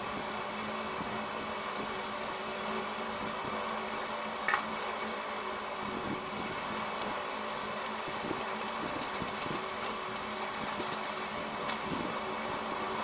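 Steady hum of a small electric motor, such as a fan, running without change, with light paper handling sounds and one sharp tap about four and a half seconds in.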